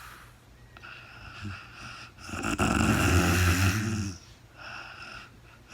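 A sleeping woman snoring: one loud snore starting a little past two seconds in and lasting about two seconds, with softer breaths before and after it.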